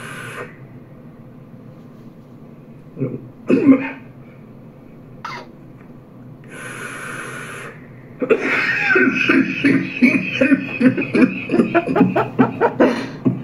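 A man vaping: a long breathy hiss of vapour, a single hard cough a few seconds in, another long breathy hiss, then a fit of rapid repeated coughing through the last five seconds, the sign of a harsh vape hit.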